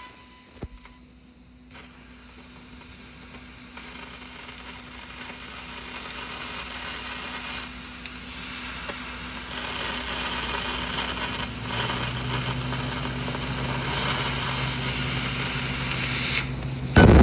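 6 kW fiber laser cutting 1-inch carbon steel: a steady hiss that slowly grows louder, over a low machine hum. A deeper hum joins about two-thirds of the way through, and a short loud burst comes near the end.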